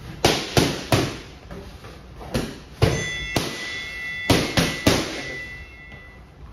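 Boxing gloves striking focus mitts: sharp smacks in three quick combinations of three punches each. A high ringing tone of several pitches sounds from about halfway through the second combination until near the end.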